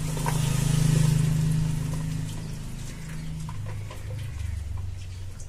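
Parboiled potato strips and their cooking water tipped from an aluminium pot into a plastic colander over a steel bowl, draining, over a low steady hum that is loudest in the first two seconds and sinks lower and fainter later.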